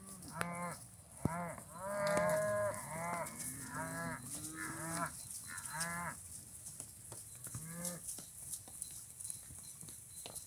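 Herd of Scottish Highland cattle mooing: many short calls one after another through the first six seconds, a last one about eight seconds in, then fewer calls.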